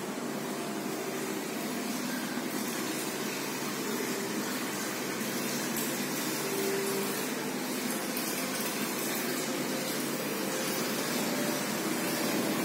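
Steady rushing hiss of an indoor spa and pool hall's background noise, growing a little louder near the end.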